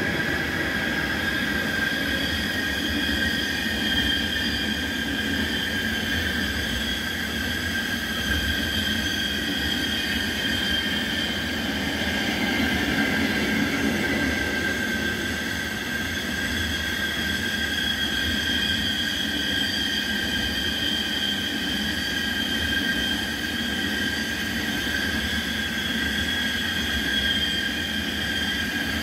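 A rail grinding machine grinding the rails of newly laid track with a steady high whine. Over it comes the rumble of a container freight train's wagons rolling past.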